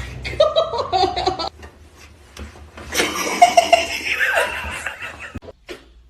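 A person laughing in two bursts, the second a little over half-way in.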